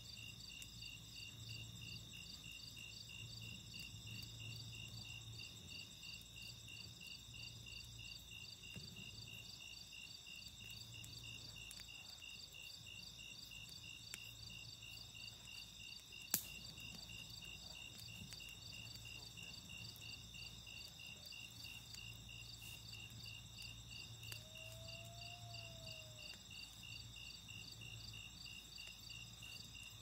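A steady, pulsing chorus of crickets, with the campfire giving one sharp pop about sixteen seconds in and a few softer crackles.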